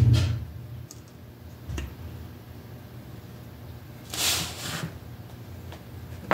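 Handling sounds on a workbench: a sharp click as the battery lead's connector is pushed onto the motor controller's wiring, a few faint clicks, then a brief rustling scrape about four seconds in as a hand moves over the controller and wires.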